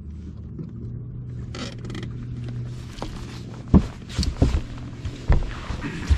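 Electric trolling motor humming steadily on the bow of a bass boat. In the second half come several dull knocks and bumps on the deck and camera mount.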